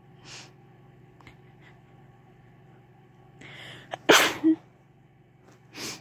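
A person sneezing: a hissing in-breath builds up, then one loud, sharp sneeze about four seconds in. A short breath follows near the end.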